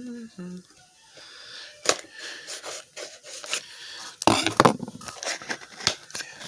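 Hands opening toy packaging: scattered clicks and scrapes, with a louder rustling burst about four seconds in.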